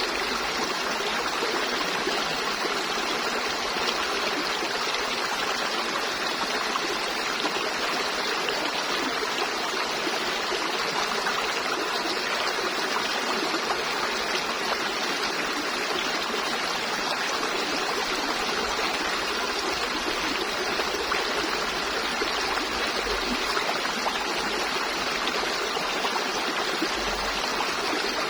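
River water flowing and babbling over rocks, a steady rushing with a light trickle.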